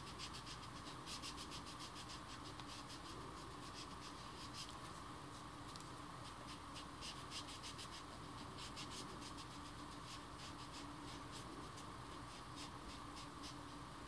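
Ink applicator dabbing and rubbing tea-dye ink onto cardstock: a faint, quick, irregular series of small taps and scratches over a steady low hum.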